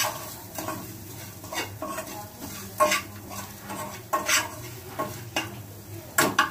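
Spoon or spatula stirring fried onion, garlic and dal in oil in a hot pan, clinking and scraping against the pan about once a second, over a faint sizzle.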